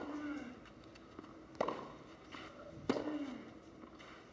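Tennis ball struck back and forth by rackets in a baseline rally on a clay court: four sharp strokes about a second and a half apart.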